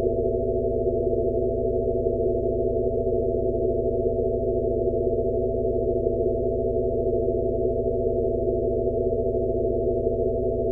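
Steady electronic drone of layered low sine tones, the Rife frequency of a tinnitus sound-therapy track. It holds unchanged with nothing above a low hum, apart from a faint soft pulse a little more than once a second.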